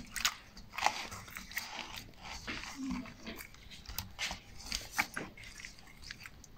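Wet squelches and pats of a hand rubbing spice paste into whole fish in a steel bowl, coming irregularly, many times a second at moments and with short gaps between.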